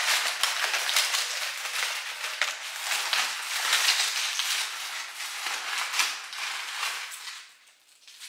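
Crumpled brown paper packing rustling and crinkling as it is pulled out of a cardboard box and unwrapped from a bottle, dying down near the end.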